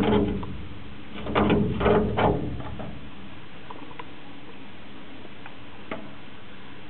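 Clock ticking about once a second, over a steady background hiss, with two louder low, pitched bursts of sound in the first two and a half seconds.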